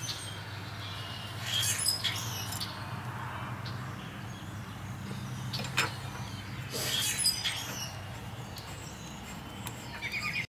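Scattered light metallic clinks and a few squeaky chirps from hand work fitting the hub on a Dana 71 axle, over a steady low hum. Near the end comes a quick run of clicks.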